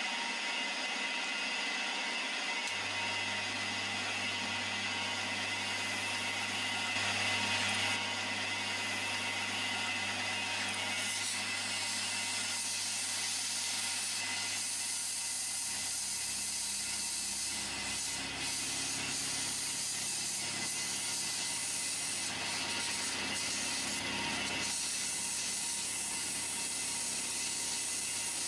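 Milling machine cutting a slot with a four-flute end mill, the spindle and cutter running steadily. A light jet of compressed air hisses as it blows the chips out of the groove so they are not recut.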